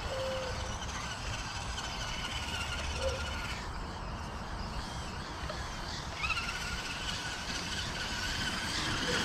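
Electric radio-controlled monster truck motor whining as the truck drives: a steady high whine that shifts up in pitch about six seconds in, over a low rumble.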